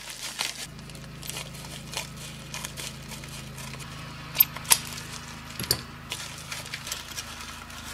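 Plastic mailing pouch crinkling as it is handled and cut open with scissors, with two sharp snips a little past the middle.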